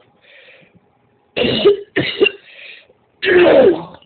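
A woman coughing in a fit: two quick coughs, then a longer, heavier one, with faint breaths between.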